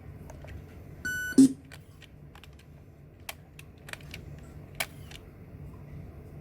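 A short electronic beep about a second in, followed at once by a sharp click, then three or four lighter clicks spaced a second or so apart, over a low steady hum.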